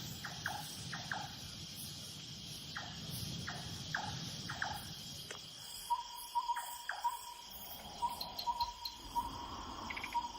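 Dusk forest ambience: insects chirring steadily, with a series of short falling chirps in the first half and a run of short notes on one pitch from about six seconds in.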